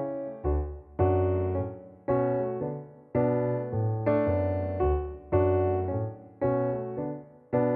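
Background music on a keyboard instrument: a chord is struck about once a second and fades away before the next one.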